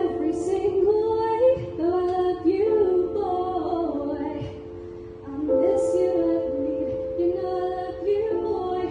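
A woman singing a solo musical-theatre song into a microphone over held piano chords, amplified through PA speakers; her voice drops away briefly about halfway through before the next phrase.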